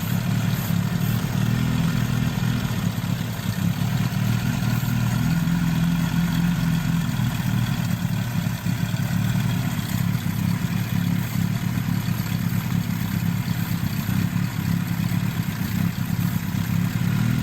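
Toyota 22R four-cylinder engine idling steadily.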